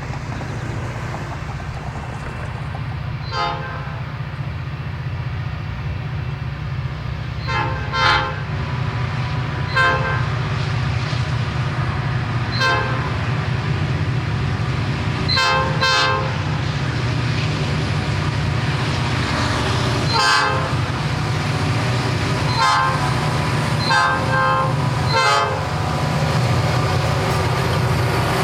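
Nathan P5 locomotive horn sounded in a string of short, irregularly spaced toots as a greeting. Under it, EMD diesel locomotives run with a steady low rumble that gradually gets louder as the train climbs the grade toward the listener.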